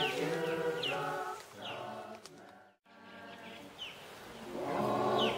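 Choir of voices singing unaccompanied, sustaining long notes. The singing fades to a brief dropout about halfway, then swells loudly again near the end.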